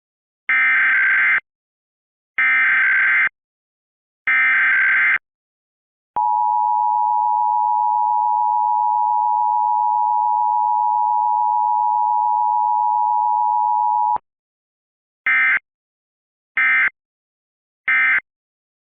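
Emergency Alert System broadcast sequence: three bursts of rapid digital data warble (the SAME header), then the two-tone attention signal held steadily for about eight seconds, then three short data bursts (the end-of-message code), with no spoken message in between.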